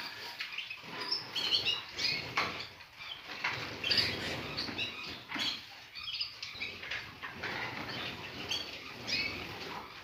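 Small cage songbirds bathing together in a shallow water dish: repeated short flurries of fluttering wings and splashing, with brief high chirps between them.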